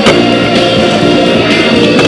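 Loud rock music with guitar.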